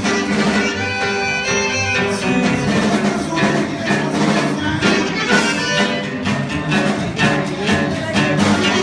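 Live band playing an instrumental piece of Sonoran regional music, with held melody notes over a steady rhythmic accompaniment.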